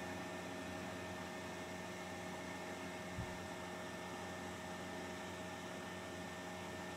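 Steady electrical hum with a faint hiss of room tone, and a single faint low bump about three seconds in.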